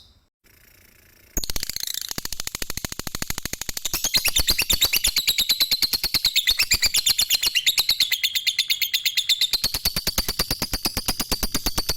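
Lovebird giving a long 'ngekek' chatter: an unbroken run of sharp, high chirps at about ten a second. It starts after a short near-silent break and gets louder about four seconds in.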